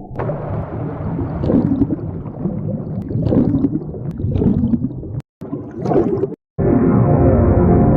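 Invented jellyfish sound effects played one after another. First comes about five seconds of gurgling, bubbly burbling, then a short second clip after a brief cut. After another cut, about six and a half seconds in, a steady droning tone with many overtones begins.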